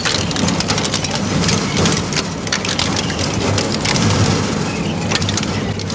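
Twin-shaft shredder's hooked steel cutters tearing through rusty scrap sheet metal: a dense, continuous crackle of crunching and snapping over a low drone from the drive.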